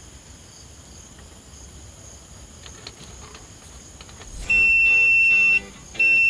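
Analog multimeter's continuity buzzer sounding a steady high-pitched beep as the test probes touch: once for about a second, then again near the end. The buzz shows that the tester is working.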